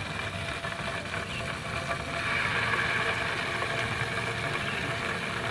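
Salmon fillets sizzling in oil on a hot electric griddle, the sizzle growing louder about two seconds in as a second fillet is laid down.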